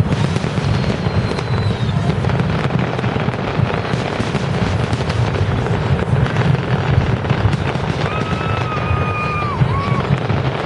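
Aerial fireworks going off in a dense, continuous barrage of booms and crackle, a display's finale with many shells bursting at once. A steady whistle sounds over it about eight seconds in.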